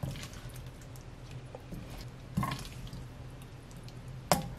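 Sauce-coated stir-fried sausages being served onto a plate with a ladle: a few soft wet squishes and light utensil clicks, the sharpest near the end, over a low steady hum.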